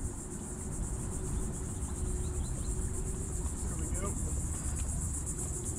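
Insects trilling steadily in a high, fast-pulsing buzz, over a low rumble and a faint steady hum.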